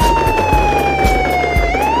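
Siren wailing, its pitch falling slowly and then turning back up near the end, over background music with a steady drum beat.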